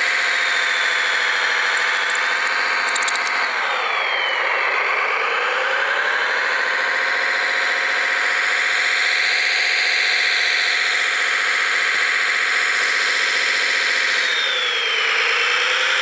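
Drive motors and gearboxes of a radio-controlled scale Liebherr 741 crawler dozer, whining steadily as it pushes its blade through deep snow. The pitch sags about four seconds in and again near the end, then climbs back.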